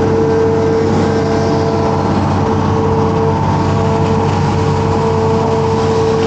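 Hitachi amphibious excavator's diesel engine running steadily under working load, heard up close from the cab, with a steady high tone held over the rumble as the boom lifts a bucketful of mud and roots.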